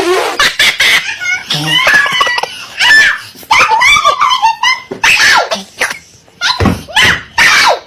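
A person laughing hard in a string of high-pitched, breathy bursts.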